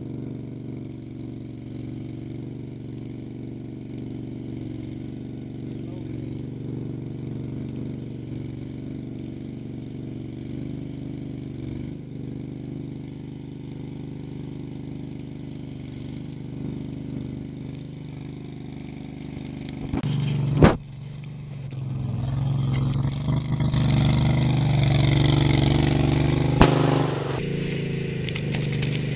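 Argo HDI amphibious eight-wheeler's engine running steadily at low speed as the machine swims through water. About two-thirds of the way through the sound breaks off and comes back louder as the machine drives out through shallow water, and there is a sharp click near the end.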